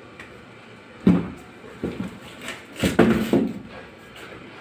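Knocks and clatter of hard plastic battery-cabinet panels being handled: one loud hollow knock about a second in, then a few lighter ones and a quick cluster of clacks around three seconds in.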